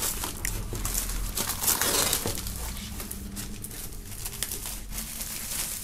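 Plastic shrink-wrap film crinkling and rustling in irregular bursts as a gatefold vinyl LP sleeve is slid out of it.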